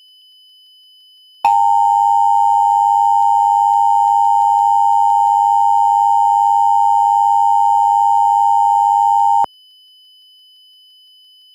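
Two-tone Emergency Alert System attention signal: a loud, steady tone of two close pitches held for about eight seconds, starting sharply about a second and a half in and cutting off suddenly. It marks the start of an emergency alert message.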